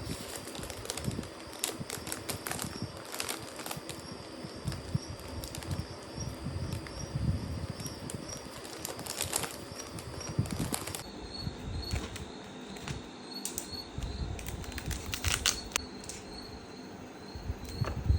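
Insects trilling in a steady high pulsing tone, with irregular clicks, rustles and low thumps mixed in. The trill drops slightly in pitch about eleven seconds in.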